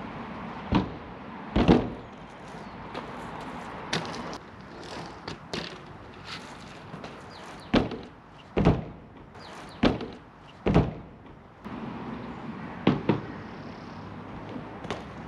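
A BMX bike thudding and clunking as it is hopped, landed and ridden onto a kicker ramp on wet concrete: about a dozen sharp knocks, some in quick pairs, over a steady background hiss.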